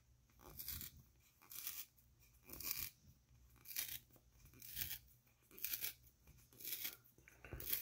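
A 2021 Topps Rip tear-open baseball card's thick cardboard being ripped by hand along its tear strip, in short rips about once a second.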